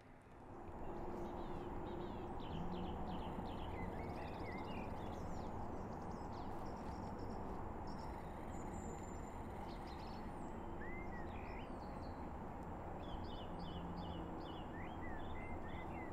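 Outdoor woodland ambience that fades in over the first second: a steady low rushing background, with small birds chirping and trilling repeatedly over it.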